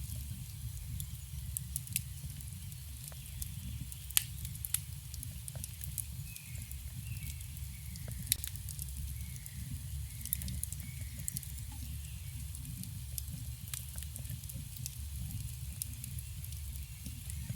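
Campfire burning with a steady low rumble and scattered sharp crackles and pops, the loudest about four and eight seconds in. Faint short bird chirps come through in the middle.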